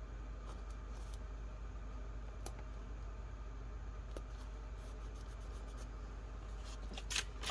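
Quiet craft handling of paper and stickers: a few faint light ticks and rustles over a steady low hum.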